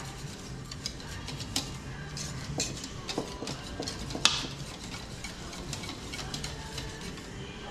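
Wire whisk beating cornstarch into eggs and water in a plastic bowl, with quick irregular clicks and scrapes of the whisk against the bowl. The clicks grow fewer and fainter in the last couple of seconds.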